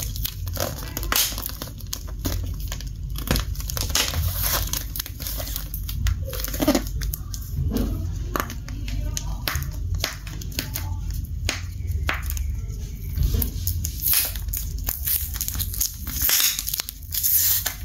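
Packing tape and cardboard of a shipping box being picked at, pulled and handled, giving irregular crackling, crinkling and tearing noises with knocks. The box is being forced open without a cutter.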